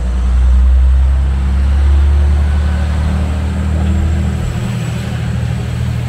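Diesel railcar's engine running with a loud, deep hum as the train moves along the platform, loudest in the first couple of seconds and easing later on.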